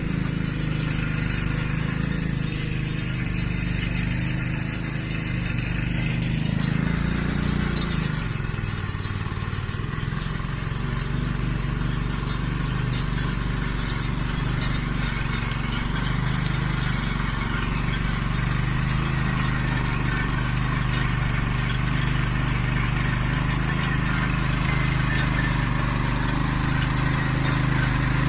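Small engine of a motorised cultivator (mini tiller) running steadily as it works the soil; its note dips about seven seconds in and picks up again a few seconds later.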